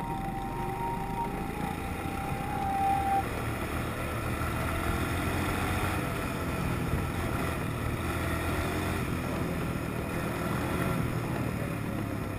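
Quad bike engine running steadily as the bike rides along.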